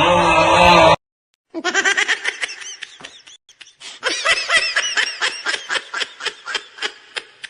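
A loud noisy meme sound that cuts off abruptly about a second in, then after a short gap a high-pitched meme laugh clip: rapid, evenly pulsed ha-ha-ha laughter running on for several seconds.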